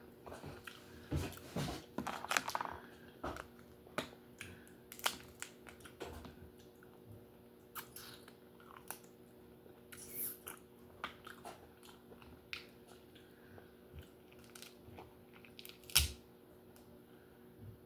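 Lobster being eaten close to the microphone: scattered cracks and clicks of shell and chewing, busiest in the first few seconds, with one sharp crack near the end.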